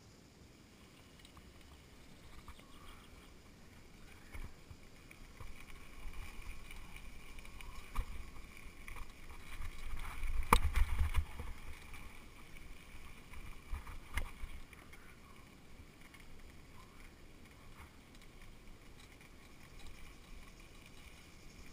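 Mountain bike riding over a rough dirt trail: wind rumble on the microphone and rattling knocks from the bike. The rumble swells in the middle, where a sharp knock is loudest, about halfway through.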